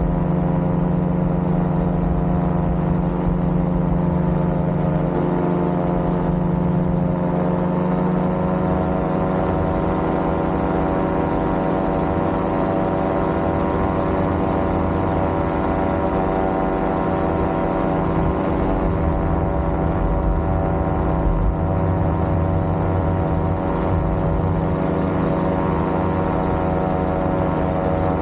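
Paramotor trike's engine and propeller running steadily in flight: a constant drone whose pitch rises slightly about eight seconds in, over a low wind rumble on the microphone.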